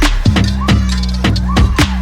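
Background electronic music with a steady drum beat over held bass notes.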